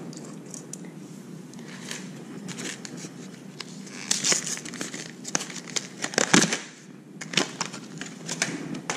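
Clear plastic packaging crinkling and rustling as a soft swimbait is worked out of its bag by hand. It is quiet for the first few seconds, then a run of quick, irregular crackles starts about four seconds in, loudest a little past the middle.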